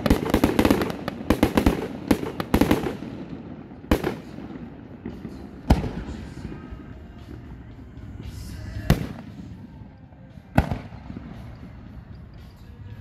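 Aerial fireworks: a quick string of crackling bangs for about the first three seconds, then four single sharp shell bursts spaced about one and a half to three seconds apart.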